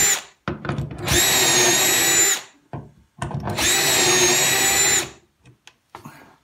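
Power drill boring shelf-pin holes through a drilling jig into a cabinet carcass: one run ends just as it begins, then two steady runs of about two seconds each with a high whine. Short clicks come between the runs as the bit is moved to the next hole.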